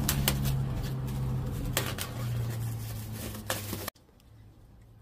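Plastic wrap crinkling and snapping as it is cut and pulled off a new aluminium extension ladder, with a few sharp clicks over a low steady hum. The sound cuts off abruptly about four seconds in, leaving only a faint hum.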